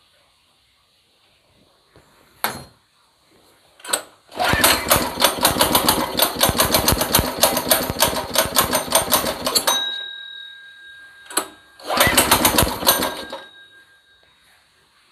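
New 200 cc single-cylinder four-stroke engine on a mini buggy starting for the first time. After two short sharp sounds it catches, runs with fast rough firing for about five seconds and dies away. It catches again for about a second near the end and dies again, not yet staying running.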